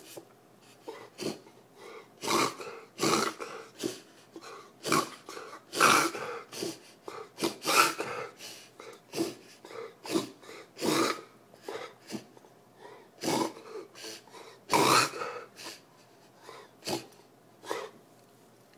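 Dog with kennel cough coughing over and over: a long run of short, harsh coughs about once a second, some much louder than others, which stop a little before the end.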